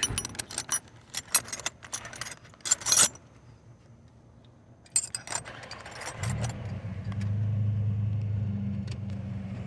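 Metal hand tools clinking and rattling as wrenches are sorted through in a tool set, in quick irregular clicks. About six seconds in, a steady low engine-like hum starts and keeps going.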